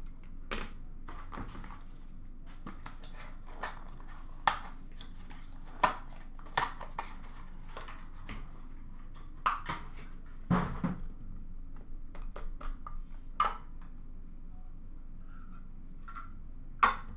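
Irregular clicks, taps and light rustling as a trading-card box is opened and hard clear plastic card cases are handled, with a duller thump about ten and a half seconds in.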